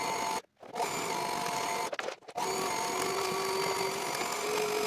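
Sailrite sewing machine running, stitching sailcloth panels together: a steady motor whine with the needle working, stopping briefly about half a second in and again around two seconds, then running on.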